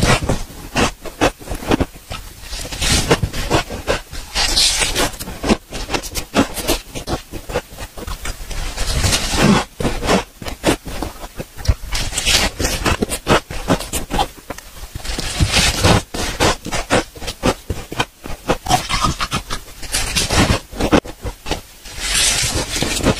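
Close-up crunching and chewing of soft, powdery ice and freezer frost, with crisp crackles and a scraping sweep every few seconds.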